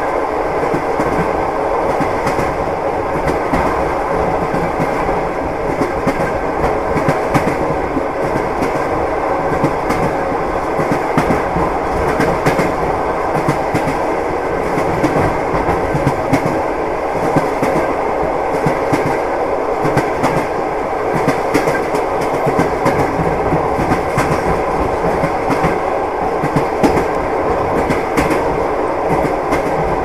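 A moving train heard from inside the carriage: a steady rumble of wheels on rails, with frequent sharp clicks and clatter.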